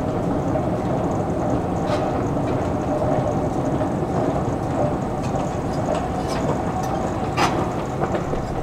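Subway escalator running: a steady mechanical rumble with a faint hum and a few light clicks.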